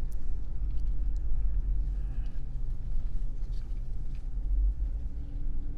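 Steady low rumble of a vehicle's engine and road noise heard from inside the cab while driving, with a few faint ticks.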